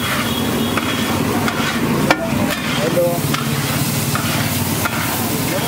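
A wide metal spatula scrapes and stirs scrambled egg across a large flat metal griddle, over the steady sizzle of hot oil. Sharp clinks and scrapes of the spatula on the metal come every second or so.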